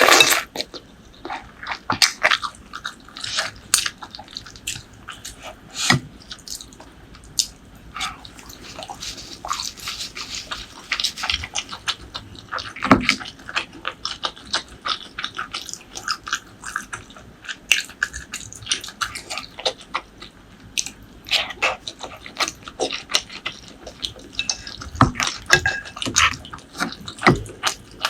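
Close-miked chewing and mouth sounds of a person eating, with many irregular short wet smacks and clicks.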